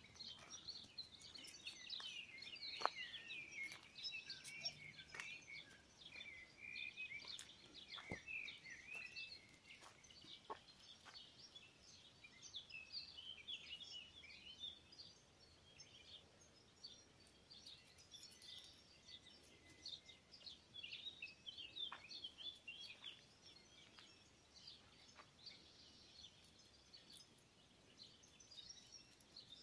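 Faint, continuous chatter of many small birds, thick with short chirps. A few sharp clicks cut through, the loudest about three seconds in.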